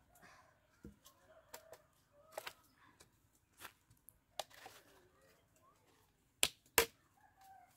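A wooden crossbar knocking and scraping against bamboo posts as it is worked into holes in them: a scatter of sharp knocks, the two loudest close together near the end.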